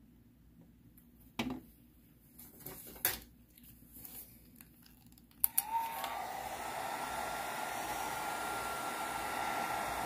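A few faint taps, then a click about five and a half seconds in as a handheld hair dryer switches on. It keeps running steadily, a rush of air with a thin motor whine.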